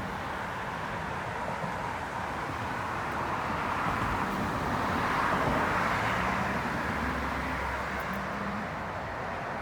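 Distant road traffic noise, swelling a little about halfway through and easing off.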